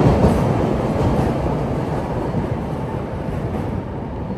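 Elevated 'L' train passing, a loud rumble that fades gradually over the few seconds.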